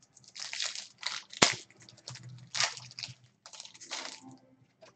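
Clear plastic wrapper of a trading card pack crinkling and tearing as it is pulled open by hand, in several irregular bursts with one sharp snap about a second and a half in.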